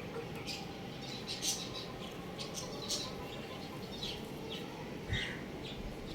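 Young rooster chirping: short, high chirps every second or so, with a slightly lower, longer call about five seconds in, over a steady low background hum.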